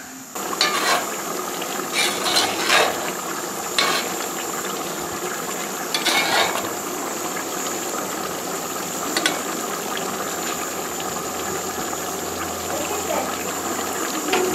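A metal spoon stirring a pot of mango curry, knocking and scraping against the pot's sides a handful of times over a steady sizzling hiss from the simmering pot.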